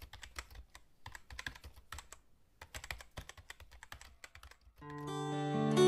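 Typing on a computer keyboard: quick flurries of key clicks with a short pause partway through. Near the end, music fades in and grows louder.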